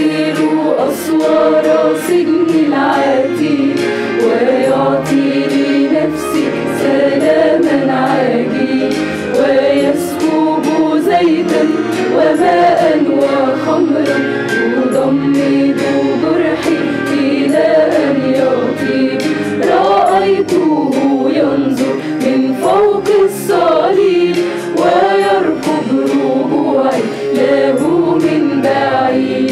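Mixed choir of women and men singing a Christian hymn together, in continuous held and moving melodic lines.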